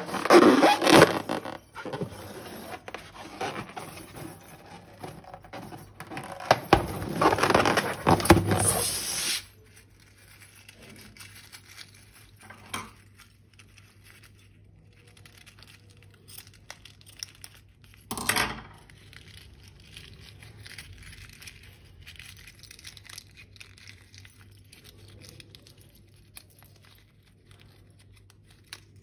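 Slime and balloon rubber being worked by hand, with crinkling, tearing-like handling noise for about the first nine seconds, then quiet scattered clicks and one short burst about eighteen seconds in.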